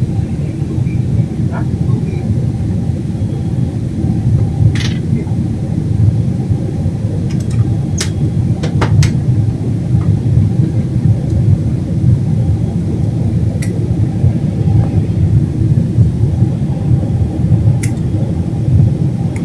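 Jet airliner cabin noise during the climb after take-off: a steady low engine and airflow roar, with a few faint clicks.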